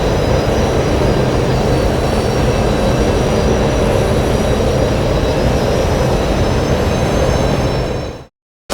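Star Wars V-Wing starfighter exterior engine-noise sound effect: a steady rumbling drone with faint high whining tones over it. It fades out about eight seconds in.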